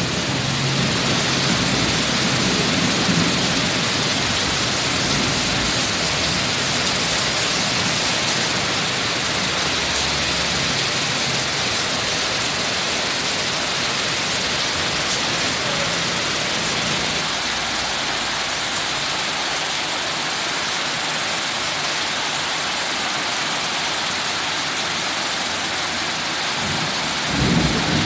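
Heavy rain pouring down in a steady hiss. A brief low rumble comes near the end.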